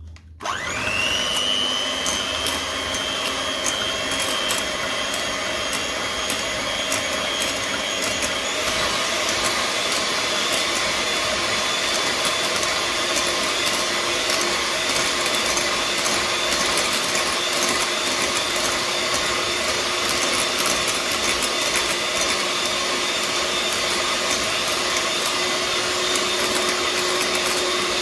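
Electric hand mixer switching on about half a second in, its motor whine rising and settling, then running steadily as its metal beaters whip chilled whipping cream in a glass bowl. The sound turns brighter about eight seconds in.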